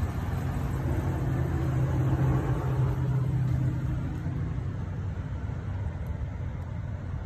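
A vehicle engine running: a low rumble with a steady hum that swells and then fades away after about four seconds.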